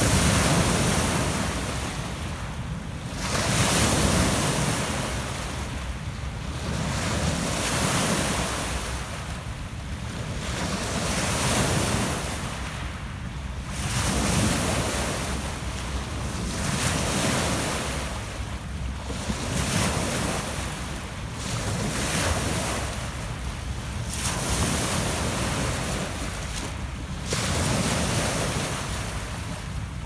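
Lake Ontario waves breaking and washing up a pebble beach, surging every three to four seconds.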